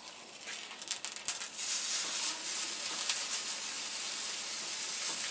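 Tomatillos and peppers sizzling as they roast in a hot pan, with a few light clicks of utensils in the first second or so; the sizzle gets louder about one and a half seconds in and then holds steady.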